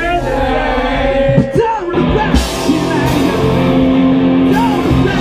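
Rock music with singing and guitar, with a sudden change to a fuller, brighter mix about two seconds in.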